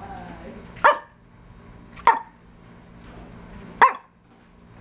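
Dog barking three times, single short barks spaced a second or two apart.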